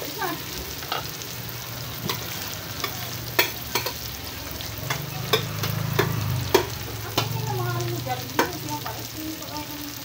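Chopped garlic, onion, ginger and tomato sautéing in hot oil in a pan: a steady sizzle with scattered sharp pops, loudest around the middle.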